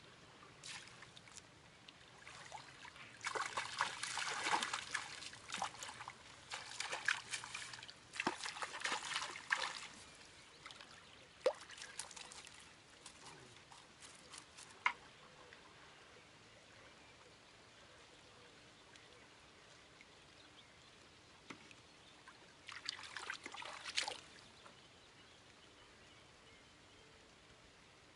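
Hooked fish splashing at the river surface in bursts of sloshing water as it is played in and drawn into a landing net, with a last short splash of water near the end.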